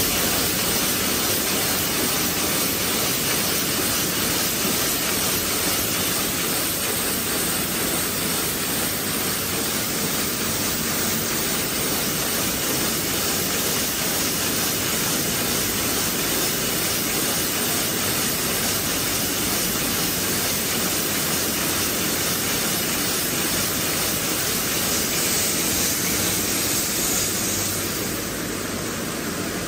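Shrink-sleeve labeling line running: a steady, even hiss and whir with no distinct rhythm or clicks, a little quieter near the end.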